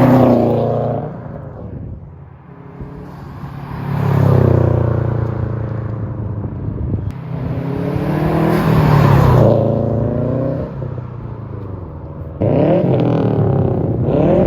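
Subaru WRX STI turbocharged flat-four with an aftermarket exhaust, revving up and dropping back several times, the pitch climbing and falling. About three quarters of the way through it jumps suddenly louder with a fast-rising rev.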